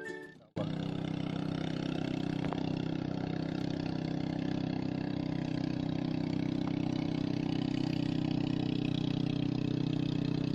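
Music cuts off about half a second in, then an engine runs steadily at an even pitch without revving.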